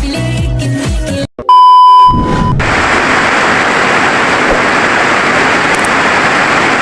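Electronic intro music cuts off about a second in; after a short gap a single loud steady beep sounds for about a second, then steady, even rain noise takes over.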